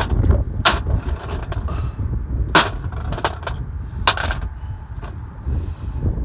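Wind buffeting the microphone, with about six sharp knocks or clacks at uneven spacing, the loudest about two and a half seconds in.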